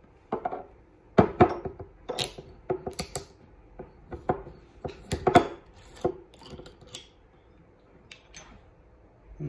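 Metal screw cap being twisted off a glass sake bottle: an irregular run of sharp clicks and crackles as the cap turns on the glass threads, thinning out about seven seconds in.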